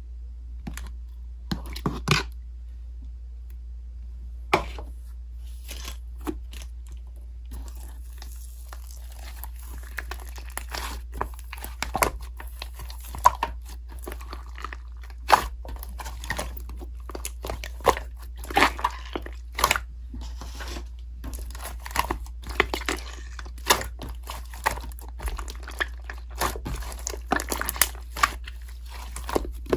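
Strawberry fresh-cream-cake slime being squeezed and poked by hand, giving irregular sticky crackles and pops. These come sparsely at first and more densely after about eight seconds, over a steady low hum.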